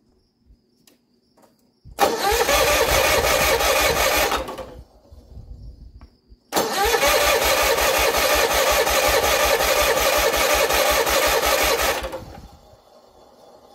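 John Deere 317 garden tractor's two-cylinder engine cranked over in two bursts, about three seconds and then about five, starting and stopping abruptly, with fuel poured straight into the carburetor because fuel is not reaching the carb from the line.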